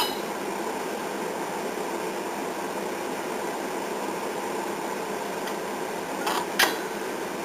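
Steady fan-like hiss and hum, with a sharp click at the start and two short clicks about six and a half seconds in, as the kerosene heater's electric igniter is switched on and released to light the wick.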